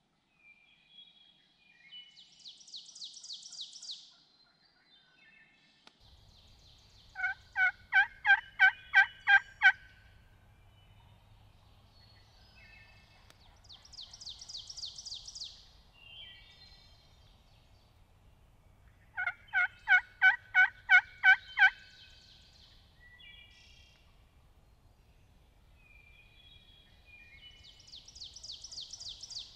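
A turkey yelping twice, each time a loud run of about eight evenly spaced notes lasting two to three seconds. Between the runs a small songbird sings a high buzzy trill three times.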